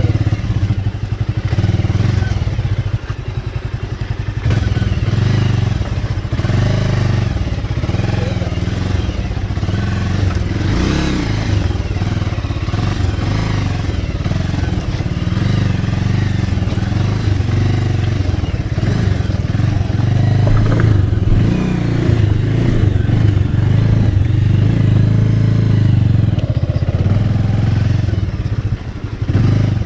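Motorcycle engine running steadily at low revs on a rough, stony off-road descent, with clattering and knocks from the bike jolting over rocks.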